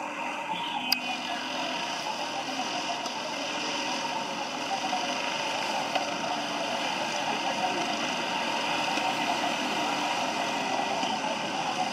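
Several racing karts' small engines running together as a pack laps the circuit, many buzzing engine notes overlapping and gradually growing louder. A single sharp click about a second in.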